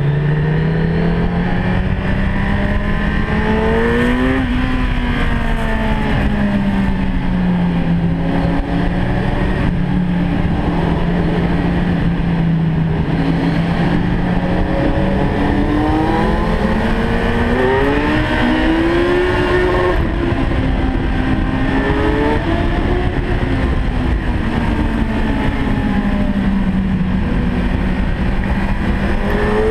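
Car engine running hard through a road tunnel, its note rising and falling with the throttle, with pushes at about four seconds and around eighteen to twenty seconds.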